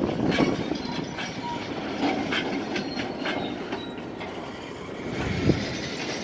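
Freight train of covered hopper cars rolling slowly past, with a steady rumble and the wheels clacking and knocking over the rail joints. A louder knock comes about five seconds in.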